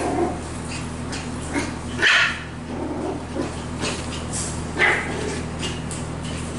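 Cockapoo puppies barking during play: two louder barks, about two seconds in and near the five-second mark, with smaller short sounds between.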